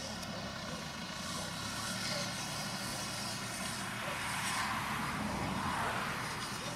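Farm tractor's diesel engine running steadily as it drives across the field, with a broader rushing noise swelling about four seconds in and easing off near the end.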